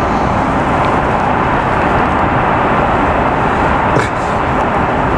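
Steady airliner cabin noise in flight: the even rumble and rush of an Airbus A330's engines and airflow, heard from inside the cabin.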